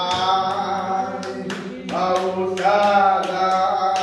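Voices singing a hymn unaccompanied, with hand claps in time with the song.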